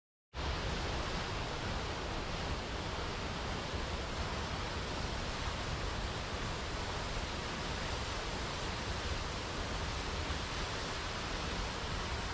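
Waterfall: water falling and splashing in a steady, dense rush, starting abruptly a fraction of a second in.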